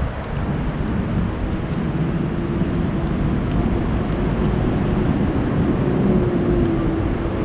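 Steady low engine rumble with a held hum joining about two and a half seconds in.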